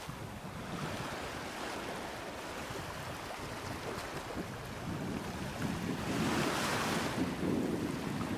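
Small waves washing in over sand and around low rocks at the water's edge, with a louder wash swelling about two-thirds of the way through. Some wind on the microphone.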